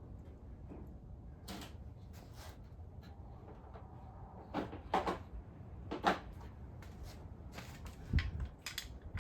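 Hand tools and metal engine parts knocking and clinking during an engine teardown, a scatter of separate clicks and clanks with the sharpest about five, six and eight seconds in.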